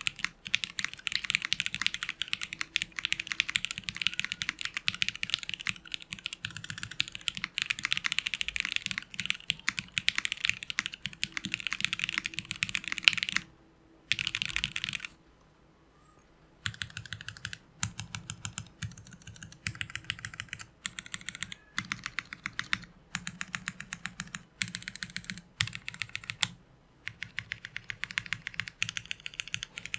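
Fast typing on a Liddell mechanical keyboard fitted with Jwick Yellow linear switches: a dense, quick run of keystrokes. About halfway through it stops twice for a second or so, then goes on in shorter bursts with brief breaks between words.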